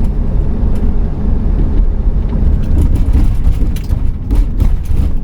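A 2008 Pleasure-Way Ascent camper van driving, heard from inside the cabin: a steady low rumble of engine and road noise, with scattered light knocks and rattles in the second half.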